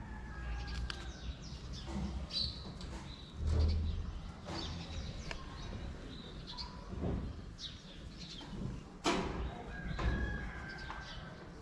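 Small birds chirping outdoors in short, scattered high calls and quick glides. Under them runs a low rumble that swells briefly about three and a half seconds in, and a sharp click comes near the end.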